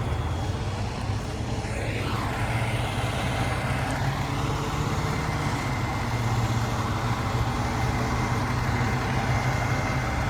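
Fire engine's diesel engine idling steadily: an even, low drone.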